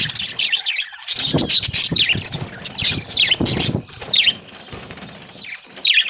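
A flock of budgerigars chirping and chattering, a dense run of short, sharp, high calls, many of them falling in pitch, thinning out for a moment past the middle.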